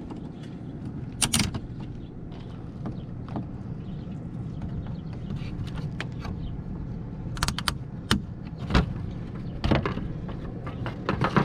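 Scattered clicks and light knocks of small tools and wiring parts being handled, over a steady low hum.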